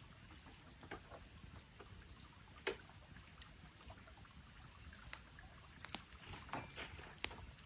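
Wood campfire crackling faintly, with scattered sharp pops, the loudest about two and a half seconds in and a cluster near the end, over a steady low hiss.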